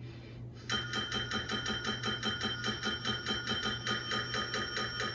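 Brass desk service bell struck rapidly and over and over, about seven dings a second, starting about a second in, over a low steady hum.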